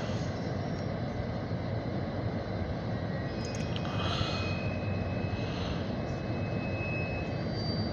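Diesel switcher locomotive and freight cars rolling past, a steady engine rumble mixed with rolling noise. A thin high steady squeal, likely from steel wheels on the rails, comes in about three and a half seconds in and lasts roughly three seconds.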